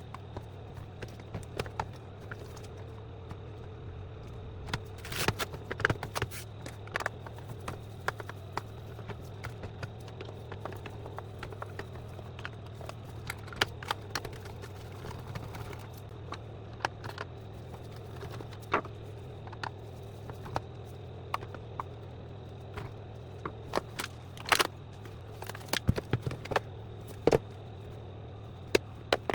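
Irregular clicks, taps and scrapes of hard plastic parts and tools being handled while a Roborock robot vacuum is taken apart, over a steady low hum.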